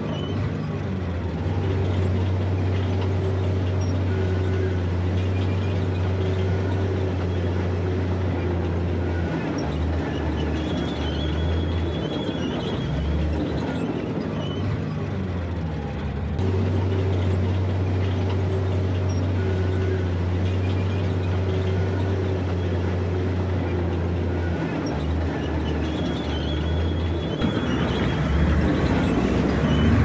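Bulldozer's diesel engine running under load, a steady deep drone that dips briefly a few times.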